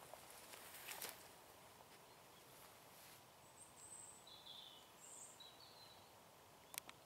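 Near silence: faint outdoor ambience with a few faint, short, high bird chirps in the middle, a brief rustle about a second in and a couple of sharp clicks near the end.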